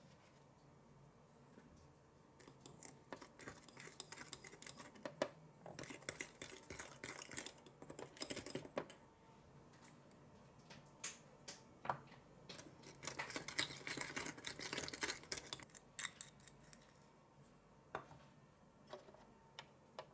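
A tiny plastic spoon stirring and scraping in a small plastic toy bowl, mixing Konapun powder and water into a gel: two bouts of quick scratchy strokes with light clicks, a few seconds in and again about two-thirds of the way through.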